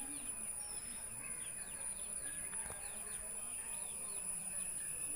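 Birds chirping in a run of quick, falling notes over a steady high-pitched insect drone.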